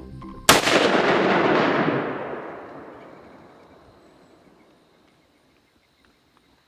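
A single gunshot at a deer, about half a second in. The report is loud and rolls away slowly over about three seconds.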